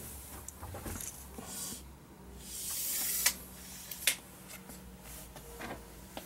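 Steel tape measure retracting: about a second of building hiss as the blade slides back into its case, ending in a sharp snap, with another click just under a second later.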